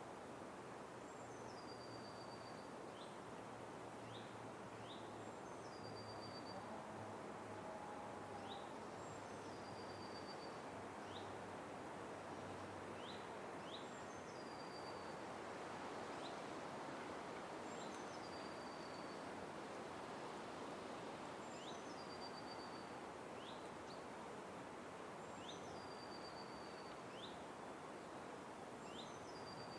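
Forest ambience: a steady, soft hiss of background noise, over which a bird repeats the same short high call about every three and a half seconds, each a quick falling note that ends in a brief held one. Short, faint rising chirps come between the calls.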